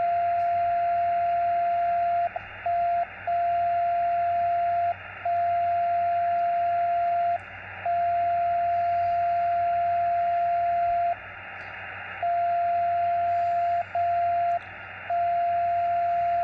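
Xiegu X6100 transceiver receiving a steady single-pitch tone in lower sideband over receiver hiss, breaking off briefly about eight times at uneven intervals, once for about a second. With no antenna connected, the owner takes it for one of the radio's own birdies rather than a station tuning up.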